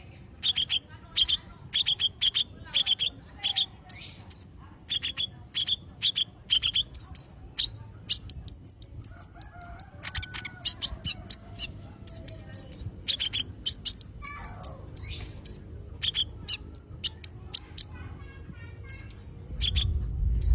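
A small songbird singing non-stop in a rapid series of short, sharp, high-pitched chirps, several a second, with brief twittering runs in between.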